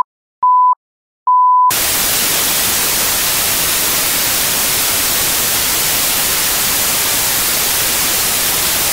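Two short electronic beeps at one steady pitch, the second a little longer, then a steady hiss of white-noise static.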